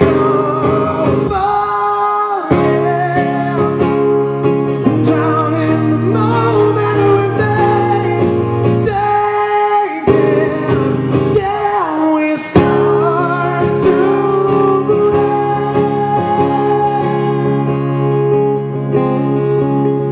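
Live song: a male voice singing over a strummed acoustic guitar.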